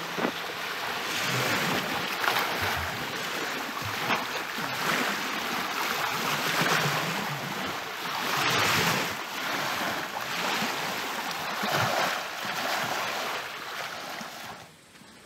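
Small Lake Superior waves washing onto a gravel shore, swelling and easing every second or two, then dropping away much quieter near the end.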